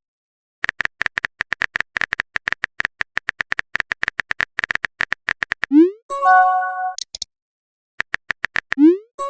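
Phone keyboard typing sounds: rapid short clicks for about five seconds. Then a quick rising whoosh and a short bright chime, the message-sent alert of a chat app. A few more clicks and a second rising whoosh come near the end.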